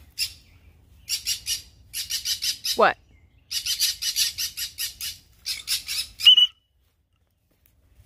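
Green-cheeked conures calling in rapid runs of harsh, pulsed squawks, several bursts in a row, ending in a short clear note.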